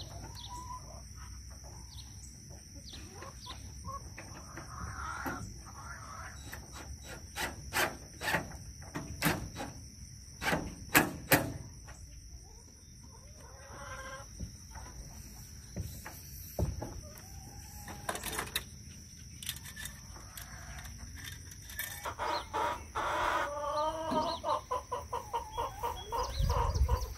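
Chickens clucking, with a rooster crowing near the end, and a run of sharp knocks in the middle that are the loudest sounds.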